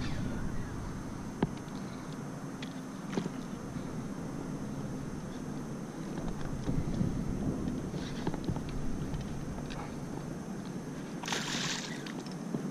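Steady low wash of water and light wind around a small boat, with a few faint clicks. About eleven seconds in comes a brief splash as a hooked speckled trout thrashes at the surface.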